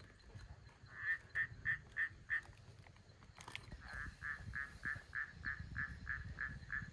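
A frog calling at night in quick series of short, evenly spaced croaks, about three a second: five about a second in, then a longer run of about a dozen in the second half. A low rumble sits underneath, and a single sharp click comes about halfway.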